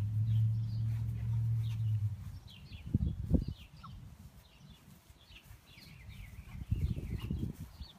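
Small birds chirping over and over with short falling chirps. A steady low hum stops a couple of seconds in, and two brief bursts of low rumbling come a few seconds in and again near the end.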